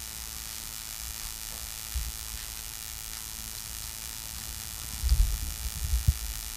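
Steady electrical hum and hiss from the sound system, with a few dull low bumps, one about two seconds in and several close together near the end.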